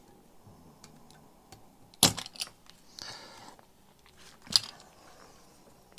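Spring-loaded desoldering pump (solder sucker) fired with a sharp snap about two seconds in, sucking molten solder off a capacitor joint. A short scraping noise follows about a second later, then another sharp click near the end.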